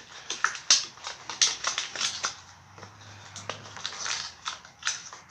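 Thin plastic seal-mate tool, cut from a pop bottle, crinkling and clicking irregularly as it is worked in between the fork seal and the fork tube, with a quieter stretch in the middle.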